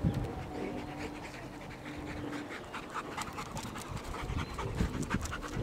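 A dog panting in quick, repeated breaths.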